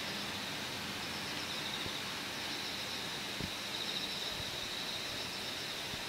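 Quiet room tone: a steady hiss with a faint, high, pulsing trill running under it, and one soft knock about three and a half seconds in.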